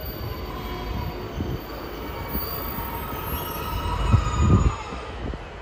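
British Rail Class 150 diesel multiple unit rolling slowly into the platform: a steady diesel rumble with a faint thin squeal above it. The rumble swells about four seconds in.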